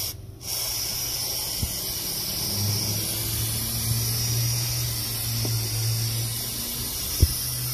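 Aerosol brake parts cleaner hissing steadily as it is sprayed over an engine's exposed cylinder head, with a brief break just after the start. A low steady hum runs underneath, and a sharp click comes near the end.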